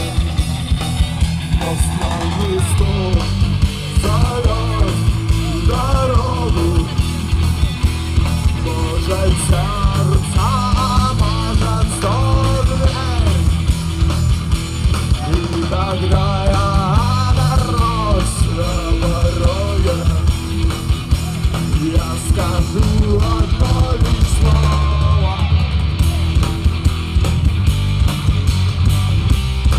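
Rock music: a lead melody with bends and glides over bass and a steady drum beat. The drums go on with regular hits.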